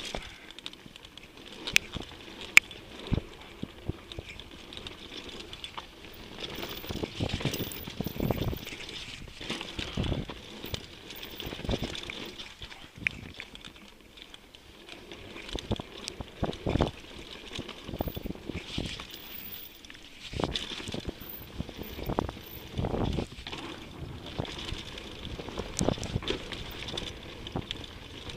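Mountain bike ridden down a dirt bike-park trail: tyres rolling and crunching on the ground, with many knocks and rattles from the bike over bumps, and wind noise on the microphone.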